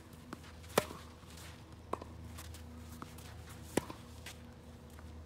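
Tennis rally on a hard court: three sharp hits of racket on ball, the near player's two loud and the far player's fainter one between them, with fainter taps in between.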